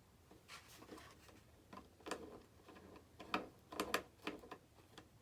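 Screwdriver and small screw being worked into the plastic tail mount of a foam RC jet: faint, irregular clicks and scrapes, busiest between about three and four and a half seconds in.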